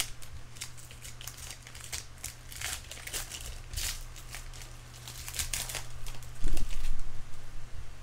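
Crinkling and rustling of trading-card pack wrappers and cards being handled, with a few louder bumps against the table or microphone about six and a half seconds in, over a steady low electrical hum.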